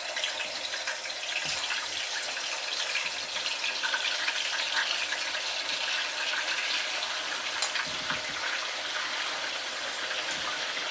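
Chicken wings frying in hot oil in a frying pan: a steady sizzling hiss with scattered crackles and pops.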